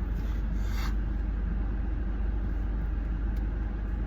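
Steady low rumble of an idling vehicle, with a short scrape about half a second in and a faint click near the end, as a dessert cup is handled.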